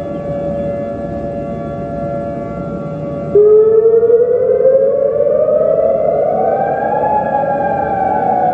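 Civil defense warning siren. A steady siren tone holds for about three seconds, then a louder siren cuts in abruptly, its pitch rising for about four seconds before starting to fall.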